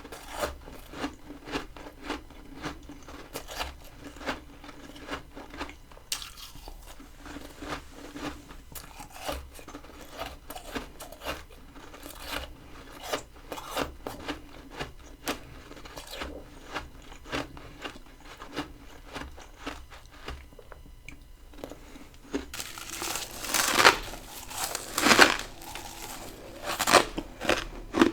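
Close-up chewing of crunchy freezer frost grown with a humidifier in a mini freezer: a steady run of crunches about one a second. Near the end come louder, fuller crunching bites.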